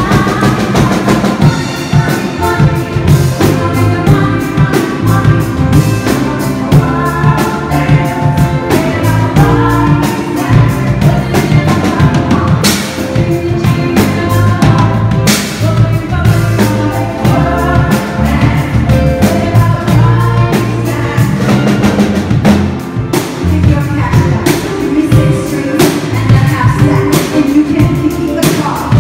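A live band playing a pop song: a woman singing lead over a drum kit and a six-string electric bass.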